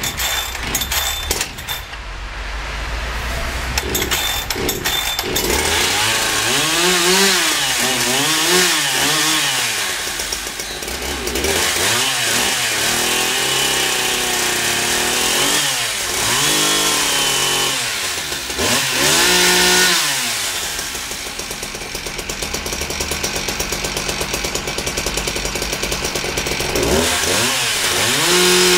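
Husqvarna 372 XP two-stroke chainsaw running. It sits at a low steady speed for the first few seconds, then is revved up and let back down repeatedly, sometimes held at high speed for a second or two.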